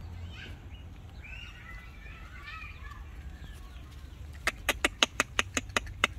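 A chicken clucking in a fast run of sharp notes, about seven a second, starting about four seconds in. Faint high squeaks come before it.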